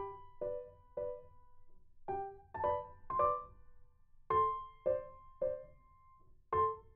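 Background music: a slow, gentle piano melody of single notes struck about every half second, with pauses and some notes left ringing.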